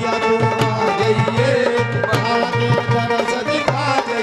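Devotional folk bhajan music with no singing: a dholak drum beats a steady rhythm with a brass cymbal, under a held melody line.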